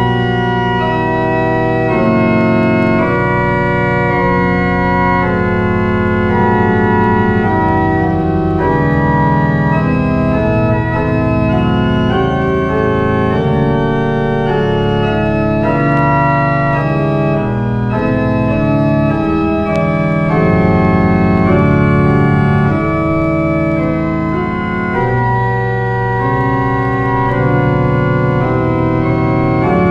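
Schwenkedel pipe organ playing slow, sustained polyphonic chords on a classic French fond d'orgue registration: principals 8 and 4 with doublette and bourdon 16. It is heard played back from a vinyl LP.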